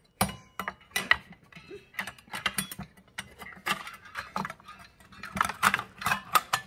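Irregular metallic clicks and clinks as a steel circular-saw blade and an Allen wrench are handled and fitted onto a compact cordless circular saw, with a quicker run of clinks near the end.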